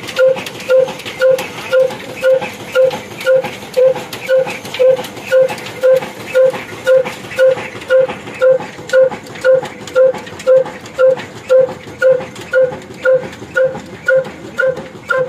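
22 HP old black diesel engine running steadily, with an even thumping beat about twice a second and a short ringing tone on each beat.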